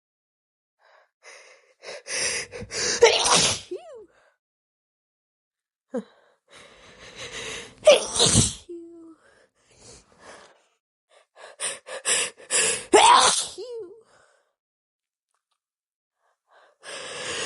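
A woman sneezing three times, each sneeze preceded by a run of short, hitching gasps as it builds; a fourth build-up of gasps begins near the end.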